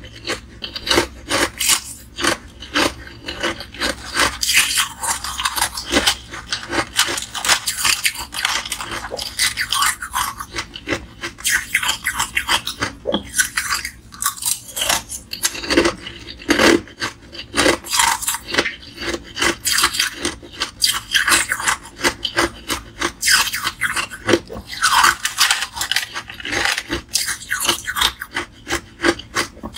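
Close-miked chewing and crunching of small purple ice pieces, a dense, unbroken run of crisp crackling bites.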